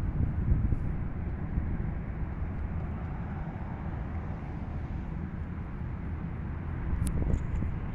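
Steady low rumble of distant jet aircraft engines across an airfield, with wind buffeting the microphone and a brief click about seven seconds in.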